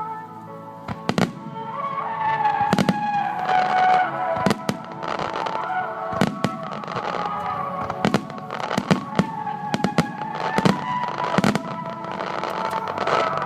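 Aerial fireworks shells bursting in a show: about a dozen sharp bangs at uneven intervals over music played through loudspeakers.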